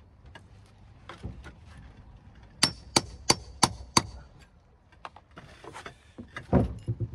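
Claw hammer striking a metal clip into a brick mortar joint to hold a lead step flashing: five sharp, ringing taps about three a second, then a few duller knocks near the end.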